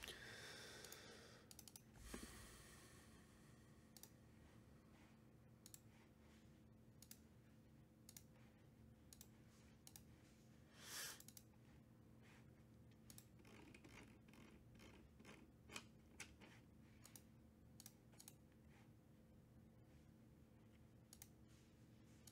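Faint, scattered computer mouse clicks and keyboard taps, with a brief soft rustle about eleven seconds in, over a steady low electrical hum.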